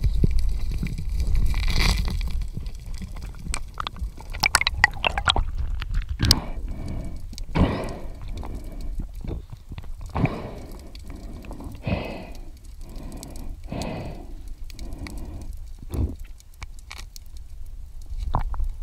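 Muffled underwater noise from a diver's camera: low rumbling and sharp clicks and knocks in the first few seconds, then a series of short rushing sounds every second or two.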